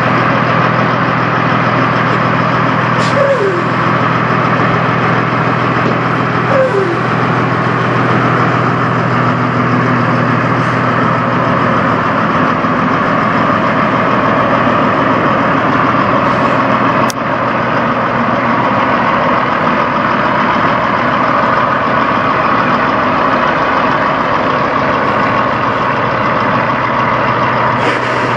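Peterbilt semi truck's diesel engine idling steadily, a constant low drone. A few short falling chirps come in the first seven seconds, and a single sharp click comes about halfway through.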